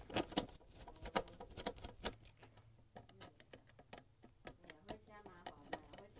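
Irregular small clicks and taps of an electric hot water dispenser's parts being handled and fitted back together during repair, with two sharper clicks about half a second and two seconds in.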